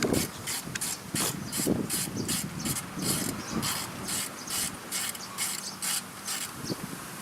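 Hand ratchet being worked back and forth, its pawl clicking in short bursts about two to three times a second. The clicking stops about six and a half seconds in.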